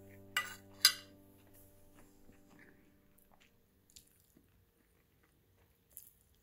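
A metal fork clicks sharply against a plate twice, about half a second apart, as a slice of luncheon meat is speared and lifted, followed by a few faint clicks. The last of a held music chord fades out under the first clicks.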